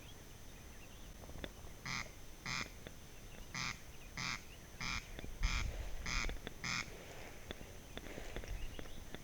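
A bird's harsh, rasping call, repeated about eight times, mostly in pairs about half a second apart.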